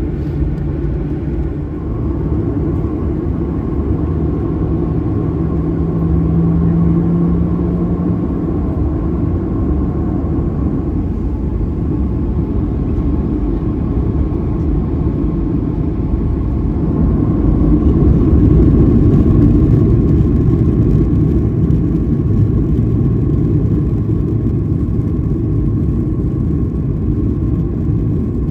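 Cabin noise of a Boeing 737-900ER taxiing, its CFM56-7B engines running with a steady whine over a low rumble. It grows a little louder about six seconds in and again after about seventeen seconds.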